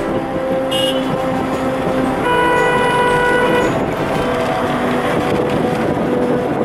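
Road traffic noise with a vehicle horn sounding once, held for about a second and a half, a little over two seconds in.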